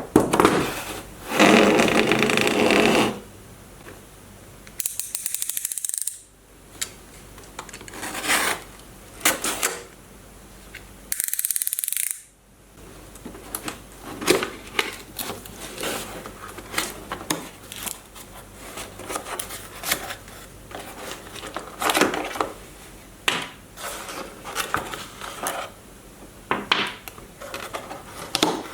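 Hands handling a toy remote control car and its packaging: a run of small plastic clicks, knocks and scrapes, with a few longer rustling or scraping stretches.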